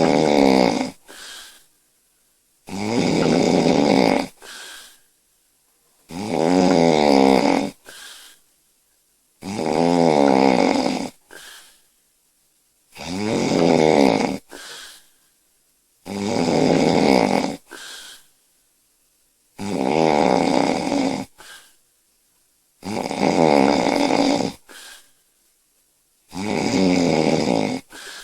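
A woman snoring loudly in her sleep: a long, rattling snore about every three and a half seconds, each followed by a short, fainter breath sound.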